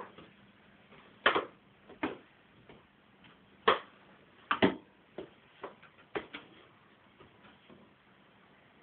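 Irregularly spaced sharp clicks and knocks, about a dozen, the loudest in the first two-thirds.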